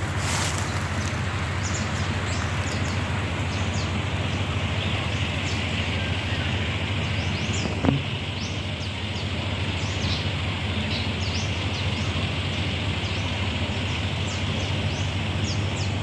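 Forest ambience: a steady hiss with a low hum beneath it, dotted with many short, high, falling chirps. There is a single sharp knock about eight seconds in.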